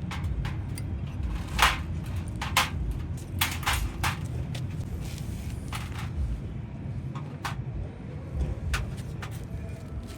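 Irregular sharp clicks and knocks of tools and metal parts being handled, the loudest about two seconds in, over a steady low rumble.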